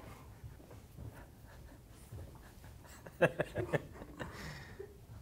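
A man's short burst of laughter about three seconds in, a few quick chuckles, over quiet room tone with faint rustling.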